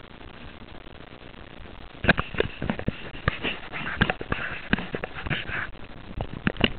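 Footsteps crunching through snow, starting about two seconds in as an irregular run of crunches and knocks several times a second, over a steady hiss.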